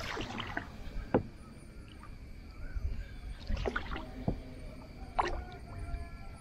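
Small wooden canoe being paddled: water swishing with the strokes and a few sharp knocks, the loudest about one second in and about five seconds in, over a steady low rumble.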